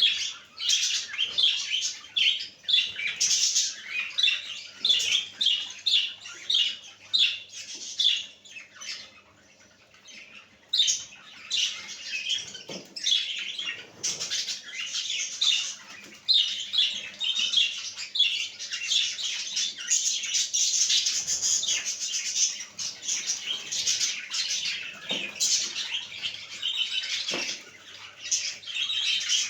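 Several pet budgerigars chattering and chirping continuously in rapid, high-pitched calls, with a brief lull about a third of the way in. A few soft low thumps are heard among the chirping.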